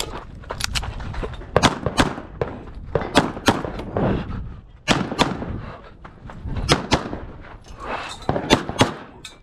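A CZ Shadow 2 9mm pistol firing a string of shots, mostly in quick pairs a third of a second apart, with gaps of one to two seconds between pairs.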